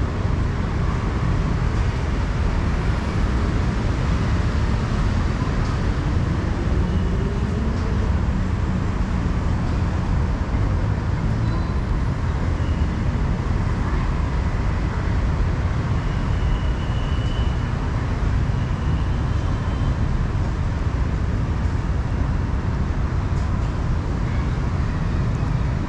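Steady outdoor traffic noise, a constant low rumble of passing road vehicles, with one engine rising in pitch about seven seconds in.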